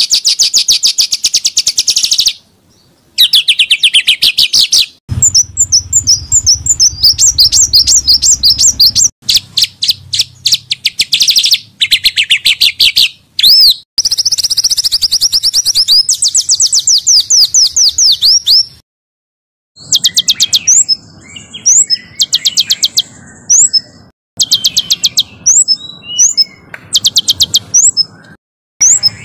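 Small songbirds singing harsh, dense runs of rapid repeated high notes, in a string of separate recordings that start and stop abruptly with short silent gaps between them.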